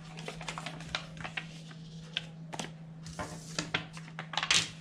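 A quick series of small clicks and taps, with a louder cluster near the end, over a steady low electrical hum.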